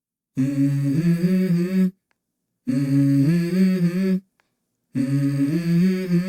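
Unaccompanied hummed vocal melody in three short phrases, each about a second and a half, with abrupt silences between them, as the intro of a song.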